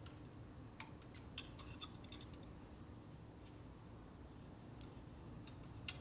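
Faint light clicks and ticks of a hook tool and wiring being worked in a tight gap on a motorcycle engine. There are several small clicks in the first couple of seconds and one sharper click near the end, over a faint steady hum.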